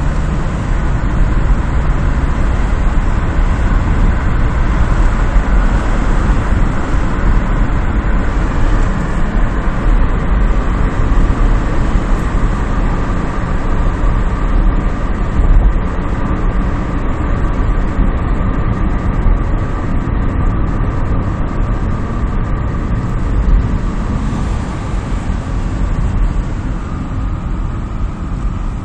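Steady road and wind noise inside a moving car: a heavy low rumble of wind on the microphone over tyre and traffic noise, easing a little near the end.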